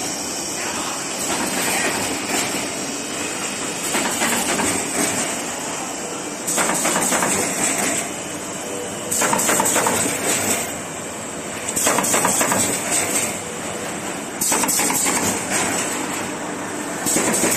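Automatic corrugated cardboard partition assembling machine running: a steady mechanical clatter that swells into a louder burst about every two and a half seconds as each work cycle runs.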